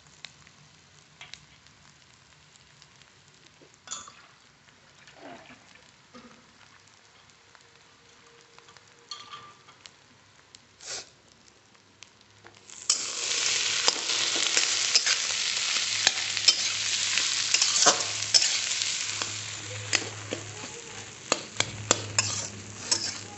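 Mashed-potato masala for masala dosa frying in hot oil in a pan and being stirred. Quiet with a few faint taps at first, then a loud, steady sizzle starts about thirteen seconds in as the filling is turned, with sharp clicks against the pan, most of them near the end.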